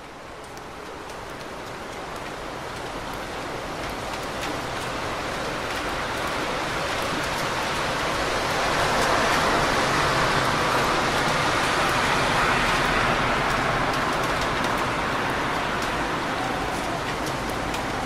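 Heavy rain on a city street, a steady hiss with a fine patter of drops, mixed with the wash of car tyres on the wet road. It grows louder through the first half, swelling most around the middle, then eases slightly.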